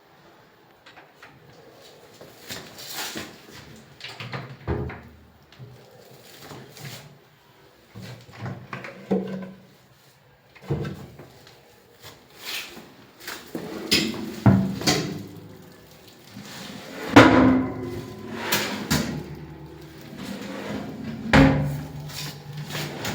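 Modular kitchen cabinet drawers and doors being opened and shut: a run of irregular knocks, slides and bumps, busier in the second half, with a few louder thuds.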